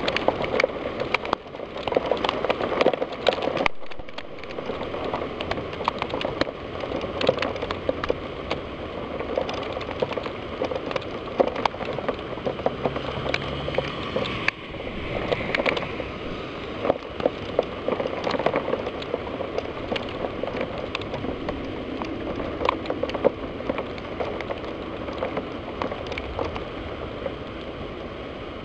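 Rain from a severe thunderstorm: a steady hiss of rainfall with many sharp, irregular drop hits against the window glass.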